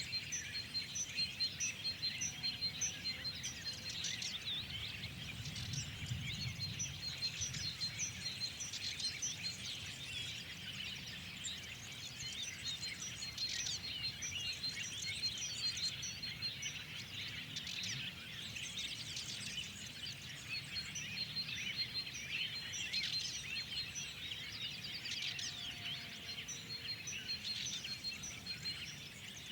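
Many small songbirds chirping and twittering together in a dense spring chorus, one of them repeating a short high note over and over. A faint low rumble runs underneath.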